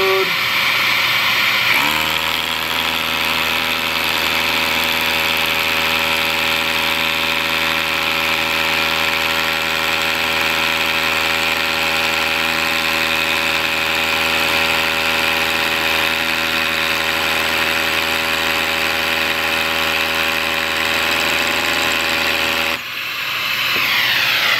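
Makita 18V sub-compact brushless rotary hammer hammer-drilling a half-inch hole into solid concrete through a Bosch Speed Clean dust-extraction bit: a steady, loud hammering buzz that starts about two seconds in and stops shortly before the end. A vacuum drawing the dust through the hollow bit runs underneath throughout.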